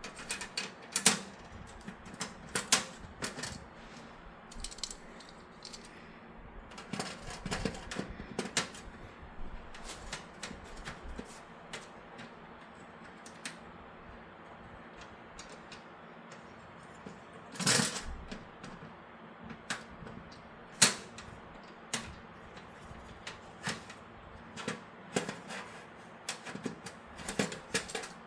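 Irregular clicks, taps and knocks of hard metal and plastic PC case parts being handled and fitted, with a louder knock about 18 seconds in.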